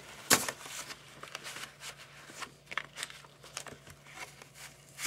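Cardboard LP jackets and paper record sleeves being handled: scattered rustling and light clicks, with one sharper tap about a third of a second in.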